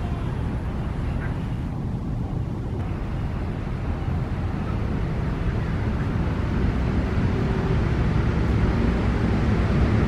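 Steady low background rumble with no distinct events, growing a little louder toward the end.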